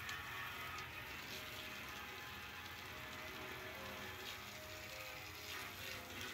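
Garden hose spraying a steady stream of water onto a vented sheet-metal receiver cover and the wet concrete under it, a continuous even splashing hiss.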